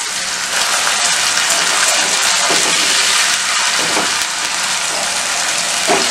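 Watery masala paste sizzling steadily in hot oil over fried onions in a nonstick wok, stirred with a wooden spatula that scrapes the pan a few times.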